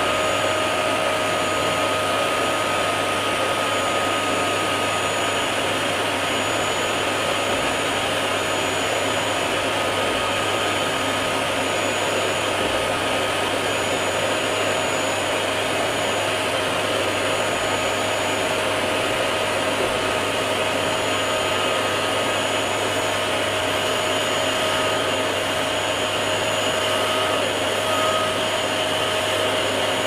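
Vacuum cleaner motor running steadily with a constant whine, its narrow nozzle sucking at the fins of a split air conditioner's indoor coil.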